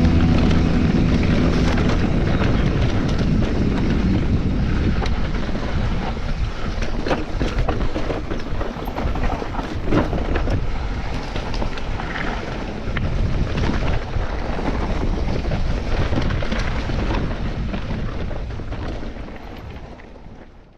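Wind buffeting the camera microphone while a mountain bike is ridden along a trail, with tyre noise and a constant clatter of small knocks and rattles from the bike over rough ground. It fades out near the end.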